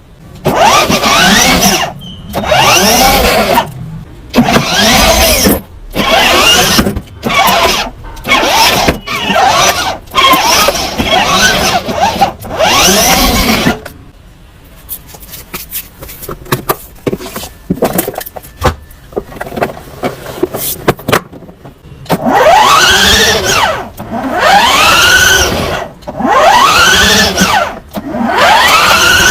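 Toy RC car's electric drive motor and gears whining in repeated bursts of about a second, the pitch rising and falling as the car speeds up and slows down. Quieter, shorter bursts come about halfway through before the longer bursts resume.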